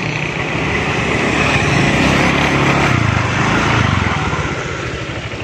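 Honda motor scooter's small engine running steadily as it rides along, with wind and road noise.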